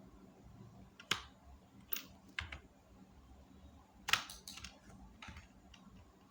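Computer keyboard keys clicking as shortcuts are pressed: a few separate taps, then a quick run of presses about four seconds in.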